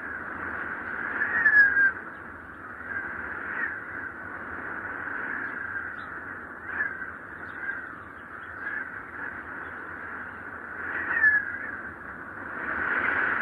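Wind whistling in gusts: a high, hollow whistle that swells and falls with short sliding rises in pitch, strongest about a second and a half in and again near eleven seconds.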